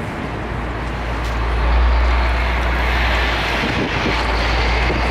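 Road traffic on a city bridge: a vehicle passes with a rushing sound that swells about a second in and eases near the end, over a deep steady rumble.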